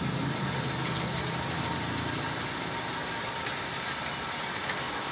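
Homemade cylinder honing machine running steadily, its abrasive hone spinning in an engine block's cylinder bore while it is stroked up and down by hand.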